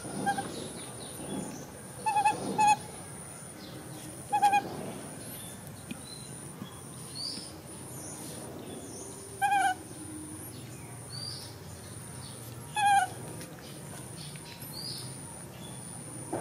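Short hooting animal calls, about seven in all, some coming in pairs, a few seconds apart, over faint high chirps.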